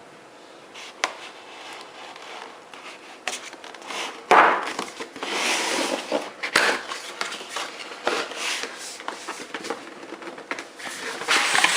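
Cardboard box and packaging being handled and opened by hand: irregular rustling and scraping with a few sharp knocks and clicks, the loudest rustle about four seconds in.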